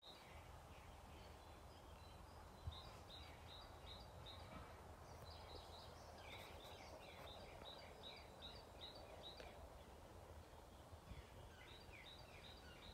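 Faint bird song: runs of short, high chirps repeated about three to four times a second, in three phrases starting about a second in, around five seconds, and near eleven seconds, over faint low background noise.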